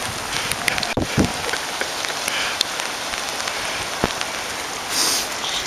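Steady, even hiss of water, with a few sharp clicks and knocks about one second in and again about four seconds in.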